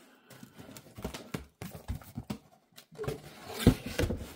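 Irregular hollow knocks and clicks of plastic parts being handled and set down, with the loudest knock near the end.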